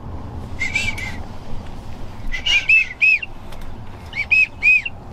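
Wood duck squealing calls: short, high whistled notes that rise and fall, in clusters of two or three, with steady background noise underneath.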